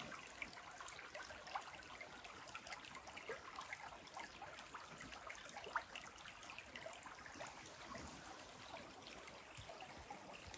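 Small, shallow woodland brook trickling steadily and faintly over rocks.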